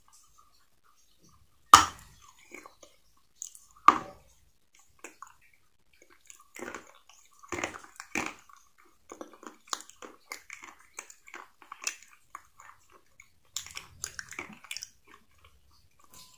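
A person biting and chewing close to the microphone: two loud, sharp crunches about two and four seconds in, then a run of softer crunches and clicks as the chewing goes on.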